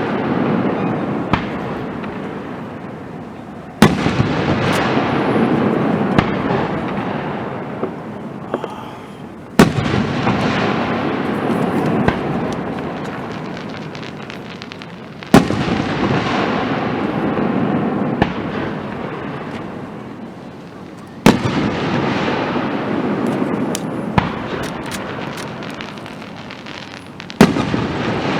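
Aerial fireworks shells bursting about every six seconds, five in all: each a sharp bang followed by a long rumble that fades away, with a few smaller cracks in between.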